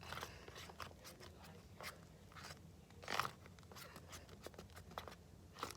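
Shaving foam being stirred into white glue: faint, irregular soft clicks and scrapes, with a somewhat louder one about three seconds in.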